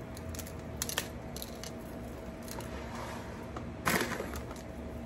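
Thin clear plastic bag crinkling in short crackly bursts as a hand grabs into it and handles it, a few light rustles about a second in and a louder crinkle just before four seconds in.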